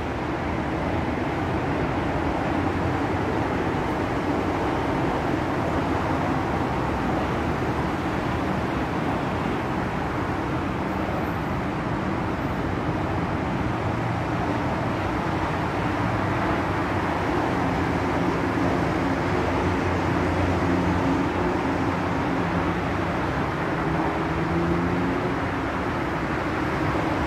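Steady drone of distant traffic and engines, with low hums that drift slightly in pitch.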